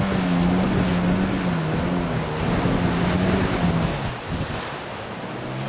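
Small boat's motor running steadily, its pitch wavering a little, over rushing water and wind; the engine sound fades down about four seconds in.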